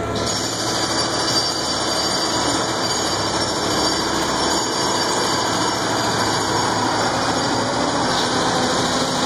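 Battery-powered Sherpa mini loader running and driving while it carries a concrete slab on its forks, giving a steady mechanical sound with a high whine that sets in just after the start.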